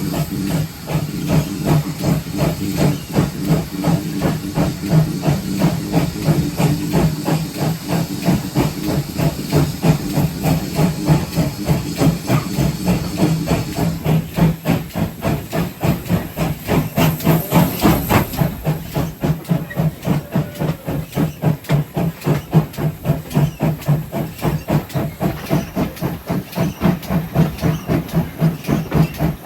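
Steam engine of GWR 57xx-class pannier tank locomotive 7754 working: a steady rhythm of exhaust beats with steam hissing. The high hiss falls away about halfway through.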